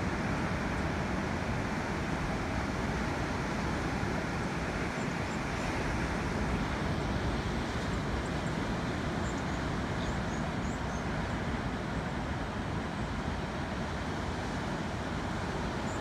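Ocean waves breaking on a rocky shore, a steady rush of surf with no breaks.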